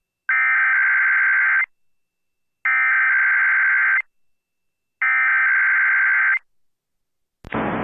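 Emergency Alert System SAME header: three identical bursts of rapid digital data tones, each about a second and a half long with a second of silence between them, encoding the alert that follows.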